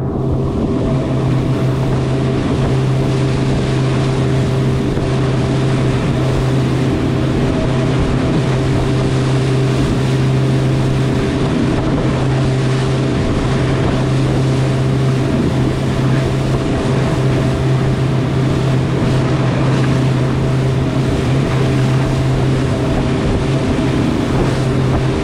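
Small motorboat running at speed, its engine a steady drone under the rush and splash of spray thrown up from the hull.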